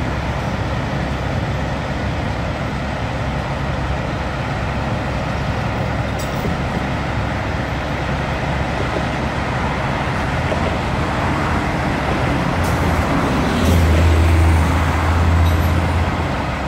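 Steady road traffic and heavy diesel vehicle engines running, with a deep engine drone swelling about thirteen seconds in and easing off near the end.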